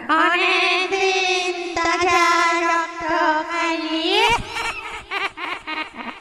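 Eerie wavering female voice, a horror-effect wail or chant held on one note, sliding up about four seconds in and then breaking into short choppy fragments.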